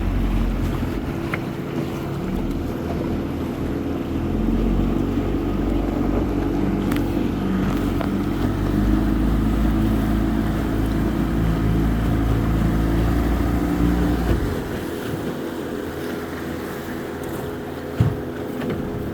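Fishing boat's outboard motor running, its pitch rising and falling as the throttle changes, then easing to a lower, quieter run about fourteen seconds in. A single sharp knock comes near the end.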